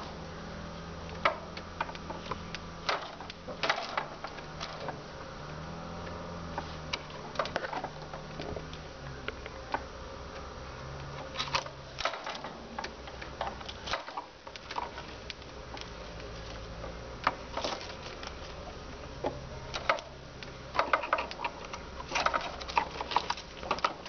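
Pettibone Speed Swing loader's engine running at a distance, heard through a window, its pitch stepping up and down as the boom swings and dumps snow. Scattered sharp clicks and taps sound over it and are the loudest sounds.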